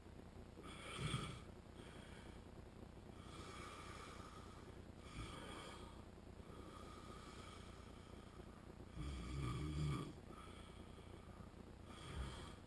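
A man with sleep apnea snoring in his sleep: irregular snores with quieter spells between them, the loudest and longest about nine seconds in, and shorter ones about a second in and near the end.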